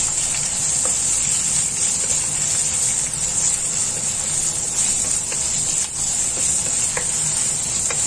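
Chopped bacon and sliced onion sizzling steadily in hot oil in a wok, stirred with a wooden spatula that gives a few soft knocks against the pan.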